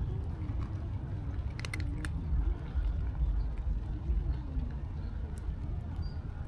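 A cat chewing dry kibble, with a few crisp crunches about two seconds in, over a steady low outdoor rumble.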